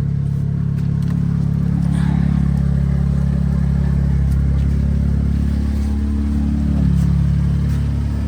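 Turbocharged BMW engine idling steadily just after starting, running without hesitation on a newly installed upgraded low-pressure fuel pump. The idle wavers slightly and swells a little about six to seven seconds in.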